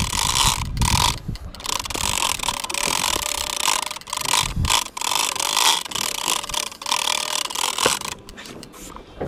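Big-game fishing reel working under the load of a hooked blue shark, its gears and drag whirring with a ratchet-like buzz. The whirring comes in pulses with short breaks and eases off near the end.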